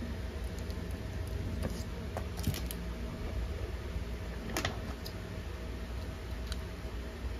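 Light clicks and clatters as a switching power supply's circuit board, with its metal heatsink, is handled and turned over, the clearest about two and a half and four and a half seconds in, over a steady low hum.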